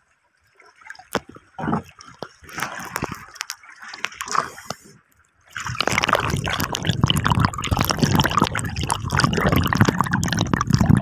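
Seawater lapping and splashing close to the microphone, then about five and a half seconds in the phone goes under the water and the sound becomes a loud, dense underwater rushing full of crackles and bubbling.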